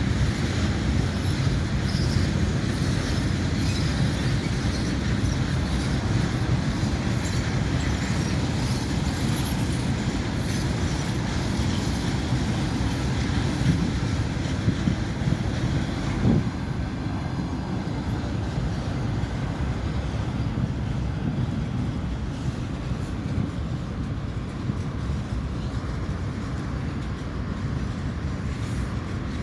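Passenger train departing, its cars rolling along the rails with a steady low rumble. A few sharp clicks come about halfway through, and the sound eases off a little after that.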